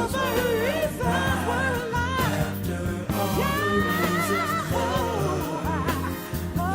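A song with a sung melody full of runs over a steady bass line.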